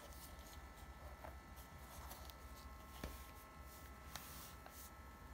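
Faint handling noise: soft rustling and a few light clicks as hands handle a soft camera case and a compact 35mm film camera, the sharpest click about three seconds in and a smaller one about a second later.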